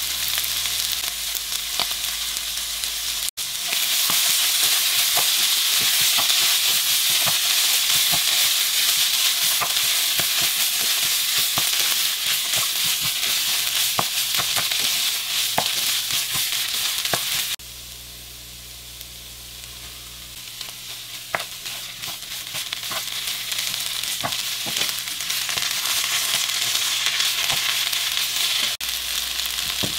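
Food sizzling in a hot frying pan while it is stirred, with frequent clicks and scrapes of the utensil against the pan. A little past halfway the sizzle drops suddenly to a quieter level, then builds back up.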